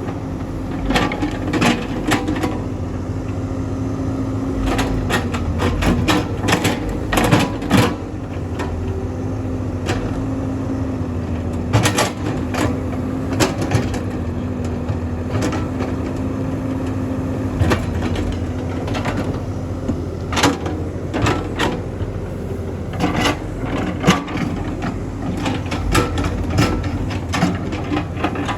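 Excavator's diesel engine running steadily under load as it pushes earth, with frequent irregular sharp clanks and knocks.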